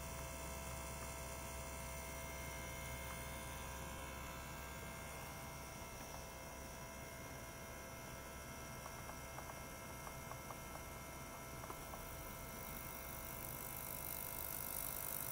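Ultrasonic cleaner (42 kHz, 26 W) running with water in its tank: a steady hum with many fixed tones. A high hiss grows louder about twelve seconds in, with a few faint ticks shortly before.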